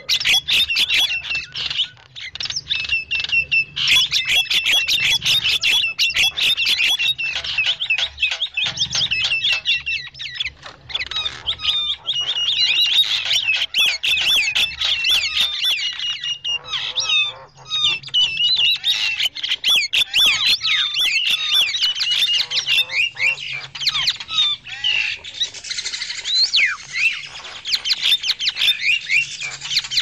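Javan mynas (jalak kebo) chattering noisily in a dense run of rapid, overlapping calls and squawks. This is a lure recording meant to draw in wild mynas.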